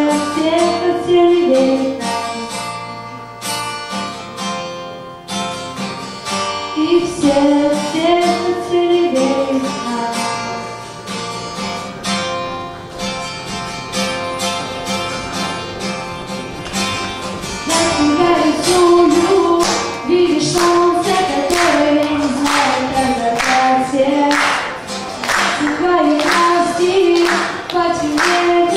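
A young woman singing to her own strummed acoustic guitar. The strumming becomes stronger and denser about two-thirds of the way through.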